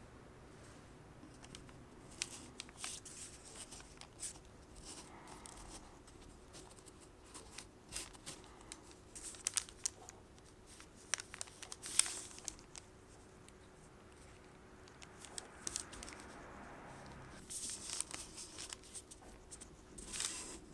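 Fingers pressing and smoothing tart dough into small metal tart rings on a parchment-covered baking mat: soft rustling and crinkling of the paper and dough with scattered light clicks and taps as the metal rings are lifted and set down. A faint steady hum runs underneath.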